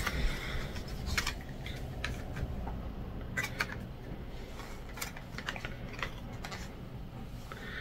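Scattered light clicks and rustles of a plastic crochet hook being handled and worked out of its cardboard-backed package.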